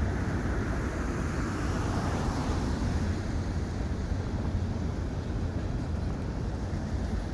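Freight train cars rolling past on the rails: a steady, deep rumble with no single clank or horn standing out.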